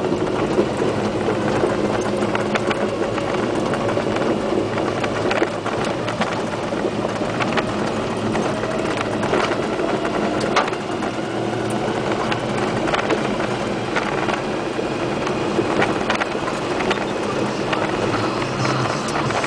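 GMC 4x4 truck heard from inside the cab on a gravel dirt road: steady engine and tyre noise, with frequent clicks and rattles throughout.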